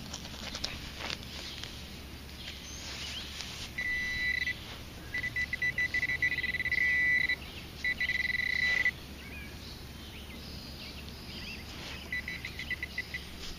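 Garrett handheld pinpointer probing a dug hole in the soil, sounding a high, rapid pulsing beep in several bursts as it picks up buried metal, the longest burst running almost steadily for about two seconds. A few scrapes of soil and clicks come before the beeping.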